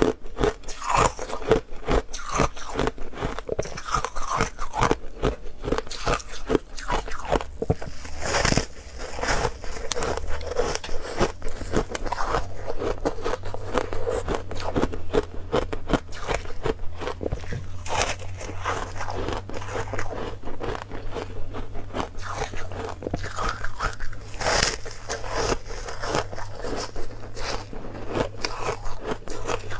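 Close-miked crunching of foam ice being bitten and chewed: a dense, continuous run of crisp crunches.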